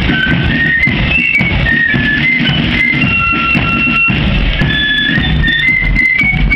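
Marching flute band playing a melody in unison on high flutes, with drums beating time underneath.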